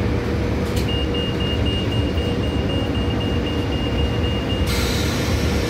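Stationary MTR Light Rail Phase III car with its door warning sounding: a rapid train of short high-pitched beeps for about four seconds over the steady hum and rumble of the car's equipment. A hiss starts suddenly near the end.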